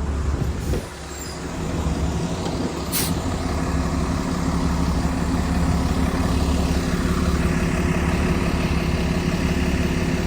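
2022 Gillig hybrid bus's Cummins B6.7 diesel and BAE hybrid drive running, heard from inside the cabin as a steady low hum. It dips briefly about a second in, then builds and holds. A short sharp click or hiss comes about three seconds in.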